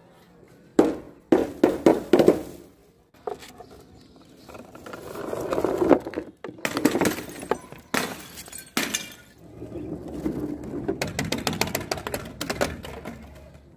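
A series of objects smashing one after another. First come four or five sharp smacks in quick succession, then glass bottles breaking and shattering with rattling, tinkling debris, and near the end a fast run of breaking clatter.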